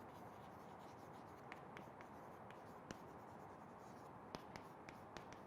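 Faint pen writing: light, irregular taps and scratches of the pen on the writing surface over a low steady hiss, with a few sharper taps in the middle.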